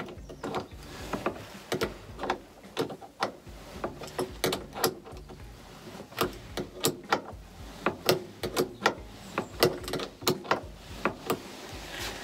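A hand ratchet clicking in short, irregular runs as it is worked back and forth on a bolt, trying to get it loose.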